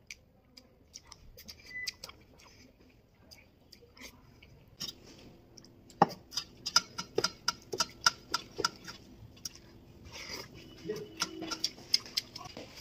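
Close-up eating sounds of boiled egg and rice eaten by hand: scattered sharp clicks and smacks at first, then from about halfway a quick run of them, several a second, with one loud click about six seconds in.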